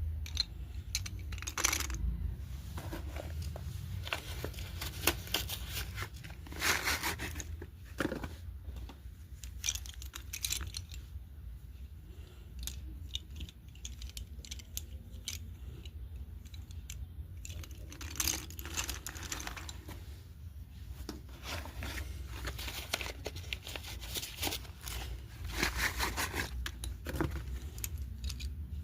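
A box of red slate pencils being unpacked and handled: paper packaging tearing and crinkling, with small irregular clicks of the pencils knocking together.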